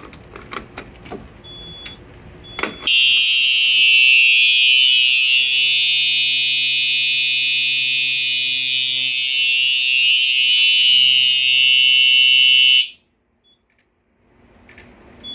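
A few clicks, then, about three seconds in, fire alarm horns on a Simplex 4010 demo system start sounding loud and steady on continuous horn coding, with no temporal pattern. They cut off abruptly about ten seconds later when the system is silenced.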